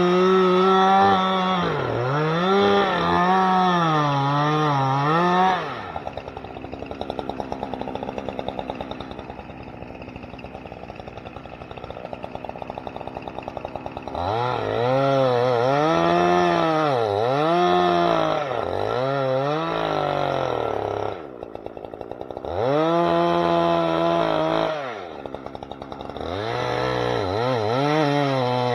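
Two-stroke chainsaw running at high revs, its pitch repeatedly dipping and recovering as it bogs under load in the cut. Around a fifth of the way in it drops to idle for about eight seconds, then revs up and cuts again, falling back to idle twice briefly near the end.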